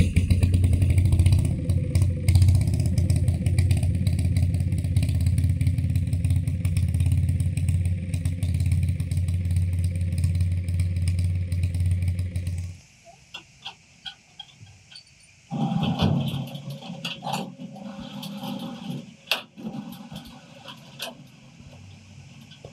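An engine runs steadily with a deep hum, then stops abruptly a little over halfway through. After a short lull come scattered clanks and knocks.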